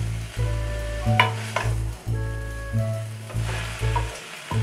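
A spatula stirring mustard greens frying in a kadhai, with a light sizzle and sharp clicks of the spatula against the pan a few times. Background music with steady low held notes plays throughout.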